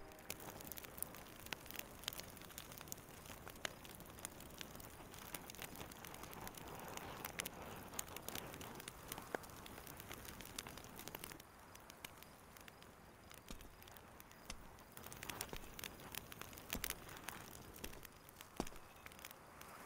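Campfire crackling faintly, with irregular snaps and pops over a low hiss.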